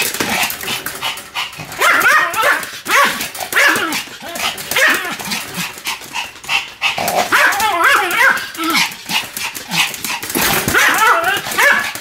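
A Pomeranian barking in quick succession without a break, high-pitched yapping barks while it spins in fast circles.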